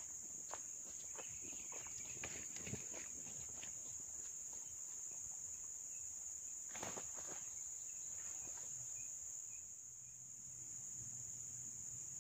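Steady high-pitched drone of insects. Short rustles and crunching steps in dry vegetation come and go, thickest in the first three seconds and again around seven seconds in.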